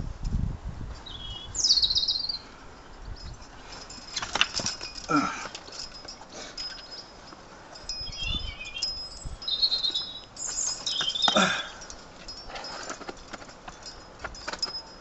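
Birds chirping in short high bursts, with light metallic clinks that fit the karabiners and quickdraws hanging on a climbing harness. Twice, about five and eleven seconds in, a call slides steeply down in pitch.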